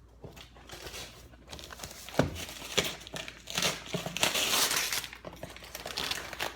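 Gift-wrapping paper being torn and crumpled by hand, an irregular crinkling and ripping with a knock about two seconds in and the loudest tearing around the middle.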